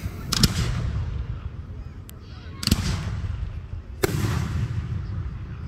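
Aerial fireworks shells bursting: three loud booms, roughly a second and a half apart, each trailing off in a low rumbling echo, with a small pop between the first two.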